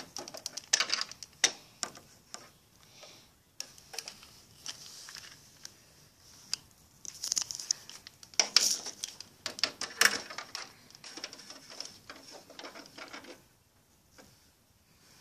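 Barbie doll and plastic dollhouse being handled close to the microphone: scattered clicks, taps and rubbing, busiest from about seven to ten seconds in.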